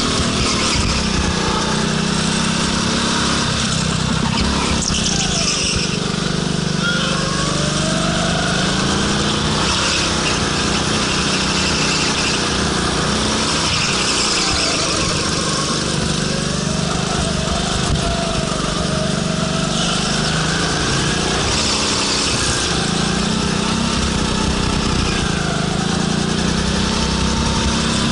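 Go-kart's small engine running under the driver, its pitch rising and falling again and again as the throttle is opened and lifted through the corners.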